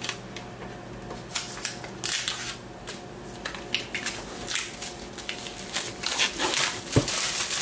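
Hands handling a cardboard iPad mini box on a desk: scattered small knocks and scrapes, with a louder stretch of fingers rubbing and sliding across the box in the second half.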